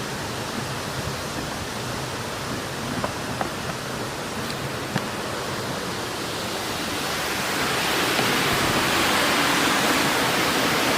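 Steady rush of water pouring through an irrigation weir, growing louder about seven seconds in, with a few faint ticks over it.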